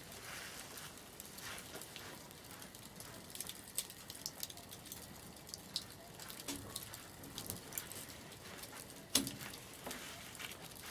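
Wood campfire crackling: scattered sharp pops and snaps over a faint steady hiss, with one louder pop about nine seconds in.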